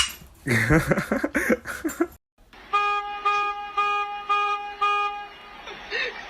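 A brief burst of loud voice-like sounds, then, after a cut, a horn-like tone honking five times at one steady pitch, about two honks a second.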